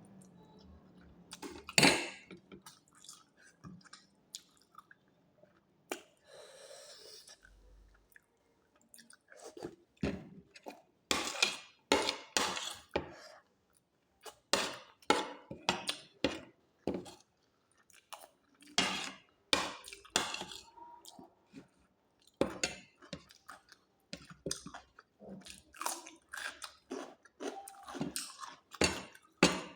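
Close-miked chewing and crunching of crisp food, in irregular crackly bites several a second, quieter for the first few seconds with one sharp click about two seconds in.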